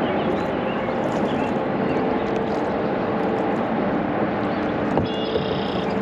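Steady rushing outdoor noise of wind and water around a kayak on a river. A single knock comes about five seconds in, followed by a brief high call or tone lasting just under a second.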